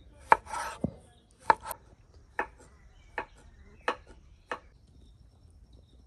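Kitchen knife slicing a pickled cucumber on a wooden cutting board. There are about eight chops: the first two carry a short cutting sound after the knock, then single knocks on the board follow roughly every three quarters of a second, stopping about four and a half seconds in.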